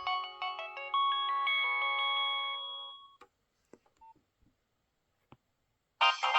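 Nokia 6030 ringtone playing a melody of several notes at once, which stops about three seconds in. A few faint clicks follow, then the next ringtone starts loudly near the end.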